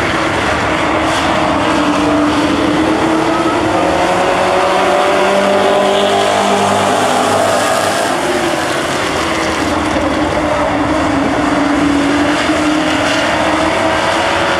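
A pack of street stock race cars running at speed on a dirt oval, several engines loud and steady together, their pitch slowly rising and falling as the cars come by and go round the track.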